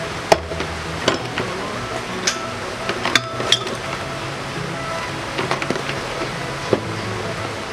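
Background music, with a few scattered metallic clinks and knocks as scooter CVT parts (a drive pulley, bolts) are set down in a plastic tub.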